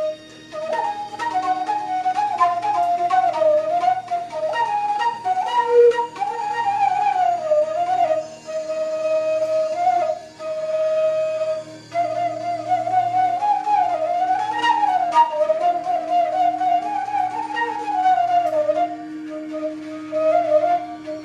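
Bansuri, the Indian bamboo flute, playing a slow melody with gliding, ornamented notes and long held tones, broken by short breaths between phrases. A steady low drone sounds underneath.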